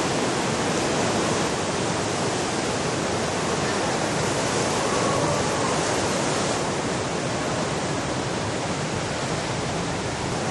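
Steady rushing noise of very large ocean waves breaking and their whitewater churning, with no let-up.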